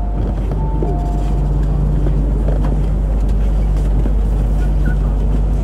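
Interior of an MTR Kwun Tong Line Q-train car while running: a steady low hum and rumble from the air-conditioning and running gear. A short high-then-low two-note tone sounds near the start.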